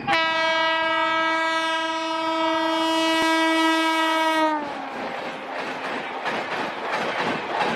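Indian Railways locomotive horn sounding one long steady blast of about four and a half seconds, dropping slightly in pitch as it ends, followed by the running noise of the train passing.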